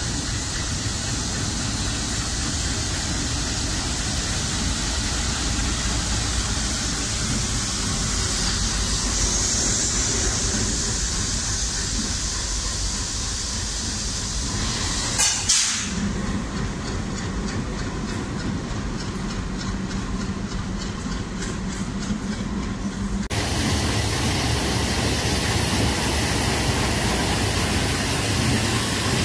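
WDM2 diesel locomotive running as it shunts slowly along the platform track, with a steady broad rumble and hiss. About halfway through there is a short loud burst, followed for several seconds by a steady hum with rapid ticking.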